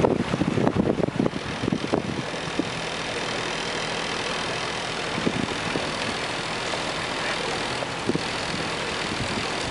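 A motor cruiser's inboard engine running steadily at low cruising speed, a constant low hum under the rush of the moving boat. In the first couple of seconds wind buffets the microphone in rough, uneven gusts.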